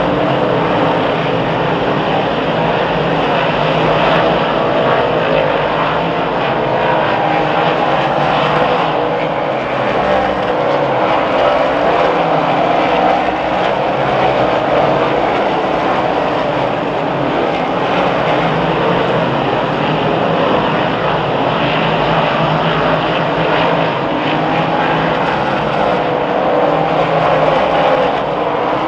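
A field of 358 dirt modifieds racing, their small-block V8 engines running together in a loud, steady drone.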